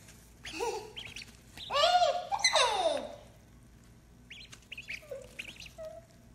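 Ducklings peeping in short, high chirps. About two seconds in, a louder drawn-out wordless cry rises and then slides down in pitch for about a second.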